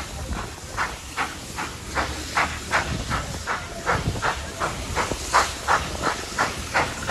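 Steam locomotive 3801, a NSW C38-class 4-6-2 Pacific, working hard as it pulls away with its train. Its exhaust chuffs come about three a second, a little faster toward the end, over a steady low rumble.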